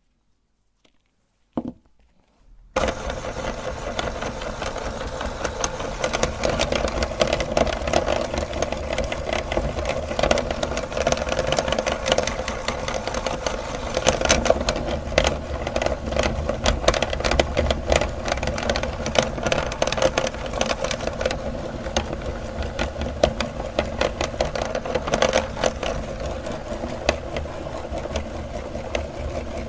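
Electric meat grinder switched on about three seconds in, its motor running steadily with a constant hum and a dense crackle of sharp clicks as it grinds soap.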